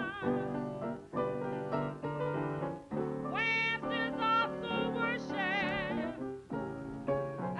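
Music: a lead melody of held notes with a wide, wavering vibrato over steadier lower accompaniment, in short phrases with brief breaks between them.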